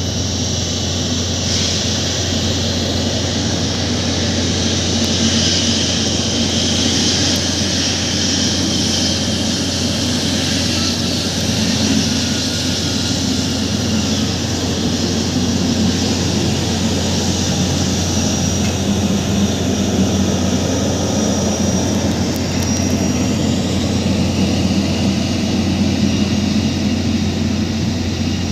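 Boeing 777-300ER's GE90 turbofan engines running at taxi power as the airliner rolls slowly past: a steady rush of jet noise with a faint high whine.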